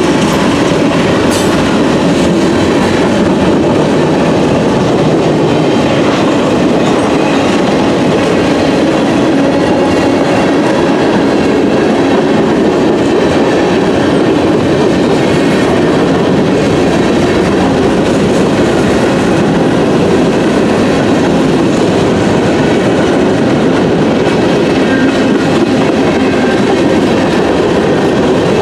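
Freight train's tank cars and covered hopper cars rolling steadily past at a grade crossing: a continuous rumble with the clatter of wheels over the rail joints.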